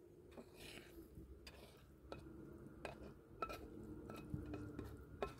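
Quiet scraping and light knocks and clinks of a slotted spatula against a non-stick frying pan as stir-fried greens are pushed out onto a plate.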